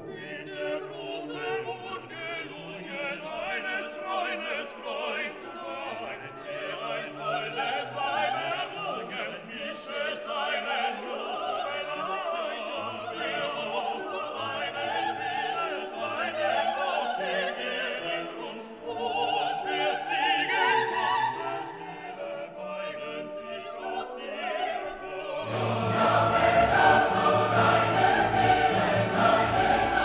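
Background classical music with operatic choral singing over an orchestra, swelling louder and fuller about 25 seconds in.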